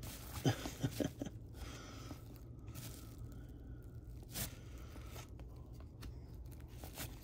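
Cardboard trading cards being slid and flipped against one another in the hands, a faint papery rubbing with a few short card snaps in the first second or so and again past the middle.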